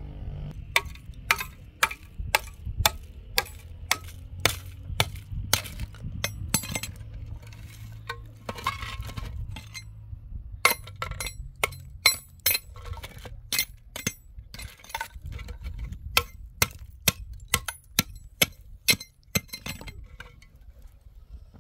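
A hammer striking a hollow concrete block to break it to size, in sharp metal-on-concrete clinks about one to two a second, with a pause of a few seconds in the middle. A low steady rumble runs underneath.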